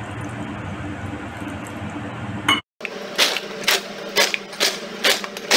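Water pouring steadily into a steel bowl. After a cut about two and a half seconds in, an immersion blender runs in the steel bowl, its head knocking against the metal about twice a second.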